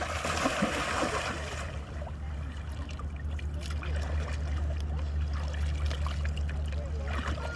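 Shallow water splashing and trickling, with a louder burst of splashing in the first second or so, over a steady low rumble.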